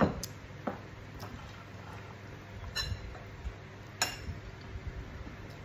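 Mouth sounds of eating by hand: a few sharp, irregular smacks and clicks of lips and teeth while picking and sucking meat off fried fish bones.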